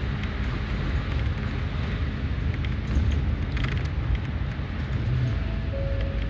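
Highway coach running through city streets, heard from on board: a steady low engine rumble with road and tyre noise.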